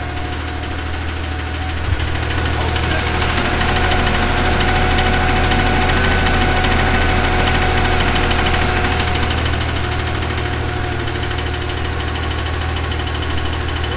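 Porsche 911 flat-six engine running with a rod knock, the sign of a worn connecting-rod bearing. It gets a little louder about two seconds in and eases off again after about ten seconds.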